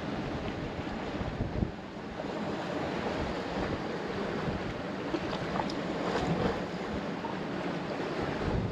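Wind buffeting the camera microphone in uneven low gusts, over a steady wash of sea surf.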